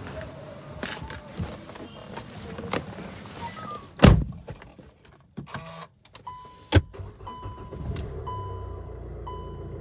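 Car sounds: handling clunks and a loud door thud about four seconds in, another sharp knock near seven seconds, then a steady electronic chime beeping about once a second, typical of a car's warning chime.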